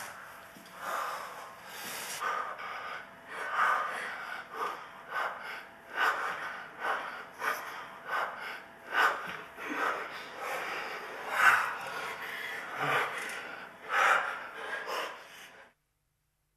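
Heavy breathing and gasps during lovemaking, uneven breaths coming about once a second. The sound stops abruptly near the end.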